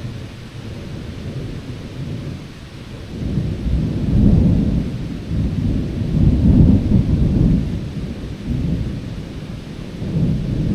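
Thunder from a storm a mile or two away: a long, deep rolling rumble that swells about three seconds in and rolls on in waves.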